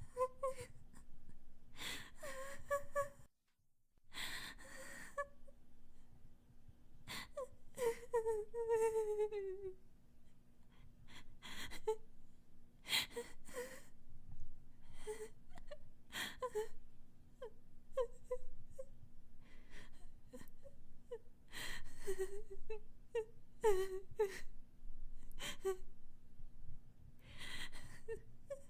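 A high-pitched voice crying: broken sobs with sharp gasping breaths and short whimpering wails, one long falling wail about eight seconds in. The crying cuts out briefly a little after three seconds.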